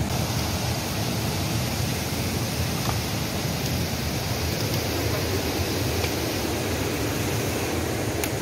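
Steady rush of a fast mountain river running over boulders and rapids.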